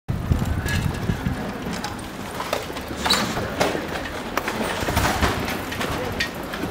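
Street ambience in a pedestrian shopping street: a steady low rumble with scattered knocks and clicks at irregular moments.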